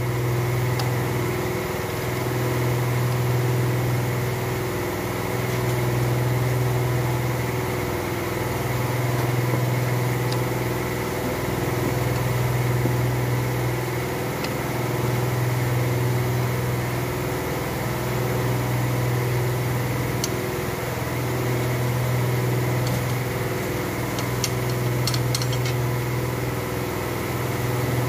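Steady machine hum that swells and fades evenly about every two and a half seconds, with a few light metal clinks near the end.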